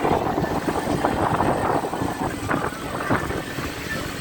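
Wind buffeting the microphone over the noise of a dhow running through rough, choppy sea.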